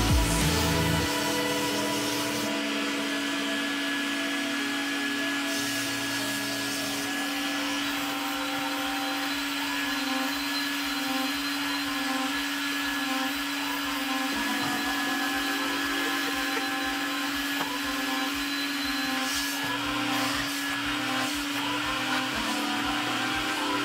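Carpet extractor's vacuum motor running with a steady whine while its hand tool is worked over wet car floor carpet.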